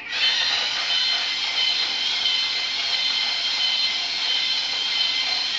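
Electronic engine sound effect from a toy car's steering wheel, played through its small speaker: a steady, high, thin engine-like sound with little bass, starting again right at the beginning after a brief break.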